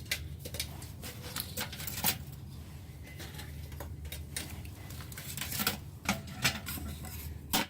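Steady low hum with scattered light clicks and knocks, a few louder ones about two seconds in and near the end.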